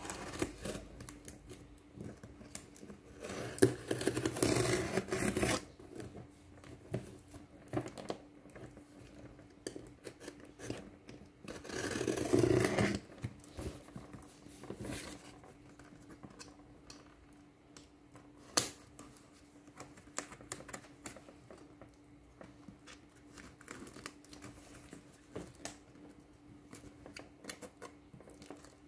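A knife cutting through packing tape and cardboard on a heavily taped shipping box: scattered scratches, scrapes and clicks, with two longer, louder stretches of cutting about three seconds in and again about twelve seconds in.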